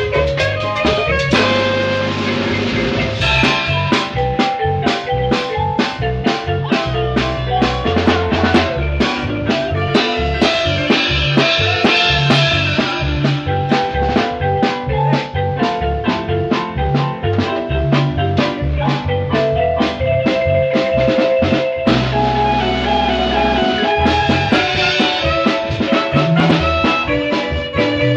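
A marimba orquesta playing dance music: marimba with electric bass, and timbales, drums and cymbals keeping a fast, steady beat.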